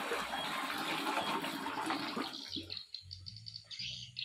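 Coconut milk poured from a plastic basin into a large metal wok: a rushing, splashing pour for about two seconds, then dying away into fainter knocks.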